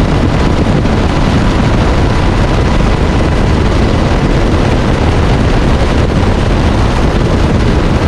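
Loud, steady rush of wind and engine noise as heard from an aircraft in flight, even and unbroken throughout.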